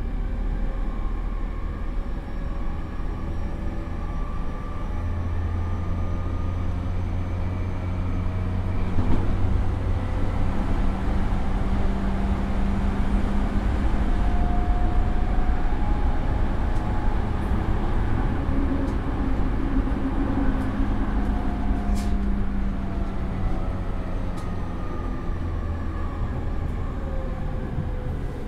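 Running sound inside a JR East E231 series motor car with its original Mitsubishi IGBT VVVF inverter: inverter and traction-motor tones held over steady wheel-and-rail rumble. It gets louder about nine seconds in, there is a single sharp click a little past twenty seconds, and the motor tones slide down in pitch near the end.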